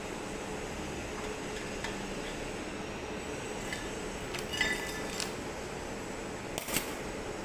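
Steady background noise with a few light metallic clinks about halfway through and one short sharp knock near the end.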